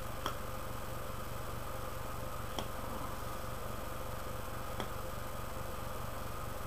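Steady electrical hum and hiss from a low-quality webcam microphone, with a faint sharp click about every two seconds.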